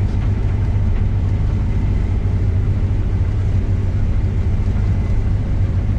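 Case combine harvester running steadily, a low, even engine hum with no changes in pitch.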